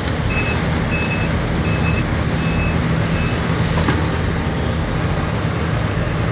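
Heavy machine's engine running steadily while its backup alarm beeps five times, about one beep every three-quarters of a second, the last one fainter.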